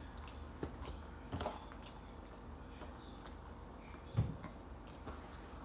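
Someone chewing chicken nuggets: scattered small wet clicks and smacks of the mouth, with a dull thump about four seconds in.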